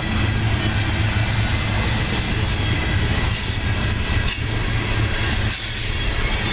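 Freight train cars (loaded ethanol tank cars, then a covered hopper) rolling past close by: a steady rumble of steel wheels on rail, with a few brief high hisses from the wheels. The covered hopper passing near the end is the last car of the train.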